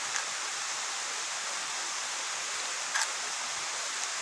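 Steady rushing of flowing river water, with a brief tick about three seconds in.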